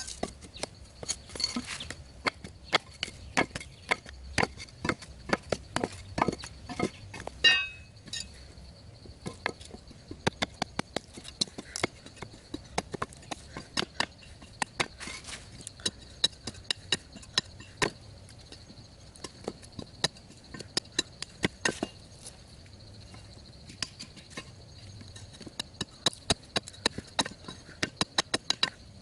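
Hand tool striking over and over, irregular sharp knocks a few times a second, as in chopping or digging, with a brief higher-pitched squeak about seven seconds in.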